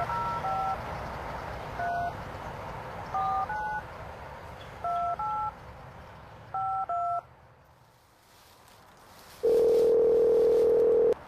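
Touch-tone phone keypad dialing a number: about ten short two-note DTMF beeps keyed in quick groups over line hiss. Near the end comes one steady ringback tone, the line ringing at the far end.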